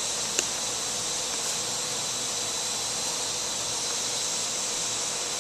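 Parrot quadcopter drone in flight, its rotors giving a steady whirring hiss with a thin high whine. A faint click about half a second in.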